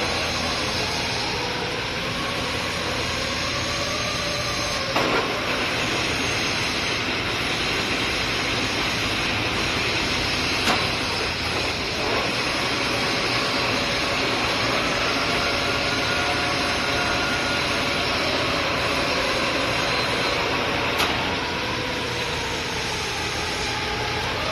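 Lathe running while machining a steel stud bar for an M45 x 3.0 mm thread: a steady mechanical noise with a faint whine that slowly rises and falls, and a few sharp clicks.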